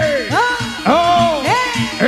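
Live East Javanese jaranan music: a loud wind melody with sliding notes, each phrase rising quickly and then falling, repeated about twice a second over low drum strokes.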